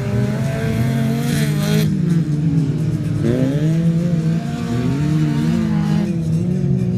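Engines of 1600 cc autocross cars revving up and down on a dirt track. Several engine notes rise and fall as the cars power through the bends, with a short burst of hiss about a second in.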